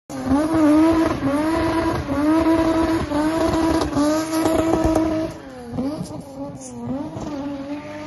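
A car being spun on tarmac, its engine held at high revs with a short dip about once a second, over the rough hiss of the rear tyres spinning. About five seconds in it drops quieter, and the revs fall and climb again in slower swings.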